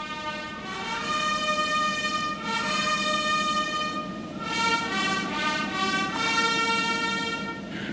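Military brass fanfare: sustained trumpet chords that shift to new notes every second or two.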